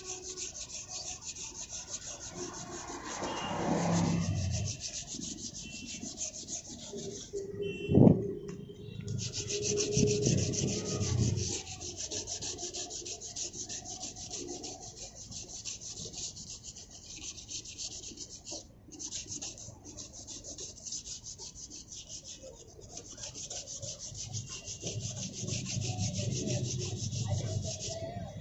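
Sandpaper rubbed by hand in quick back-and-forth strokes over a Toyota Innova's plastic bumper, sanding the surface down to prepare it for repainting. The strokes stop briefly a couple of times, and a single sharp knock about eight seconds in is the loudest sound.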